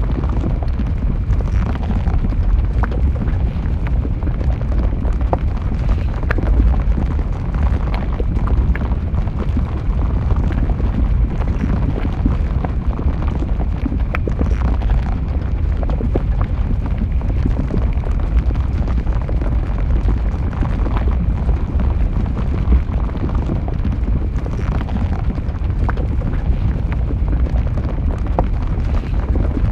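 Molten lava flowing: a steady deep rumble with scattered crackles and pops throughout.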